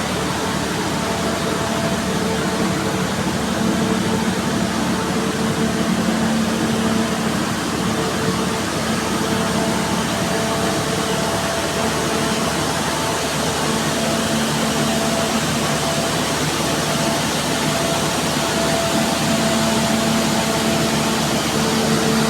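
Machinery in an engine house running steadily: a loud, even roar with a constant hum whose pitch does not change.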